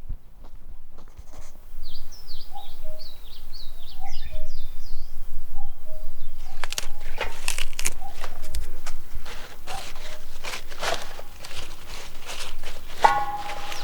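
Birds singing: a quick series of short, falling high whistles over lower short notes. From about six seconds in this gives way to a run of sharp clicks and knocks, with a brief pitched call near the end.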